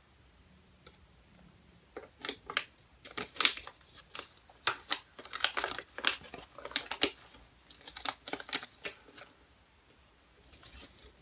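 Crinkly plastic Shopkins packaging being handled and opened: a run of irregular crackles and rustles, with a few softer ones near the end.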